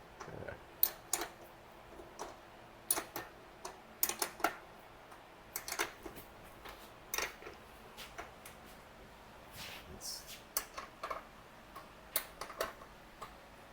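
Scattered light clicks and knocks of hand tools and bike parts being handled, coming at an irregular pace, a few of them sharper than the rest.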